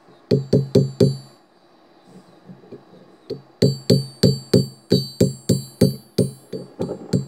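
Hand hammer striking a forge-welded bundle of steel rods on an anvil, each blow with a bright metallic ring. There are four quick blows, a pause of about two seconds, then a steady run of about three blows a second, as the weld is hammered to test and break it.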